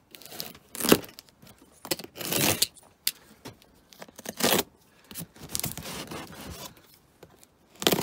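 Utility knife slicing packing tape and cardboard along the flaps of a box, with short, sharp bursts of tape tearing and cardboard scraping, and softer rustling in between.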